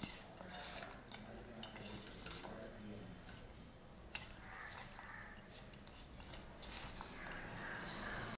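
Hands mixing flaked steamed fish with chopped shallots, green chillies and coriander in a stainless steel bowl: faint squishing and rustling, with a few light clicks against the bowl.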